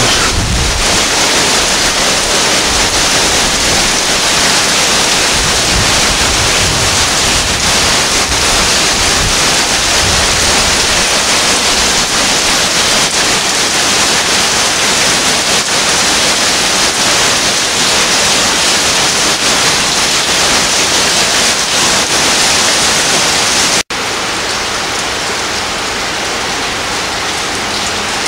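Heavy rain pouring down in a steady hiss. About 24 s in it cuts out for an instant and comes back slightly quieter.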